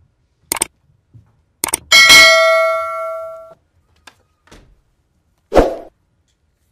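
Subscribe-button animation sound effect: a couple of quick mouse clicks, then a bright notification-bell ding that rings out and fades over about a second and a half, with a short thump near the end.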